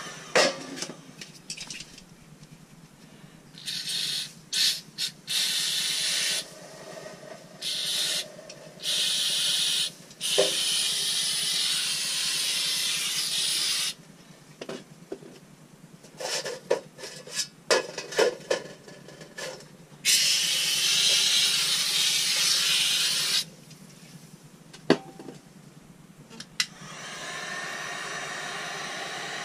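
Pressurised spray hissing in repeated bursts of one to four seconds, each starting and stopping abruptly, with clicks and knocks between the bursts.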